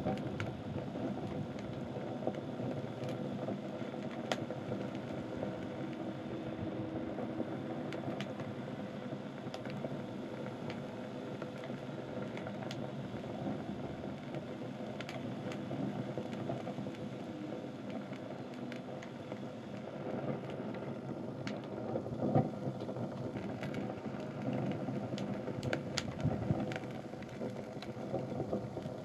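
Fire burning a pile of sneakers, rubber soles and suede and fabric uppers: scattered sharp crackles and pops over a steady low rushing noise.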